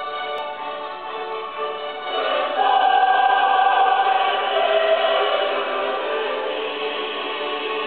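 Music with a choir singing held notes, swelling louder about two seconds in.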